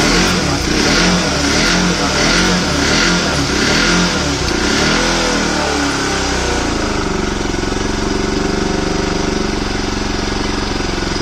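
Bajaj Pulsar RS200's single-cylinder engine running. It is blipped up and down repeatedly for about five seconds, then settles into a steady idle.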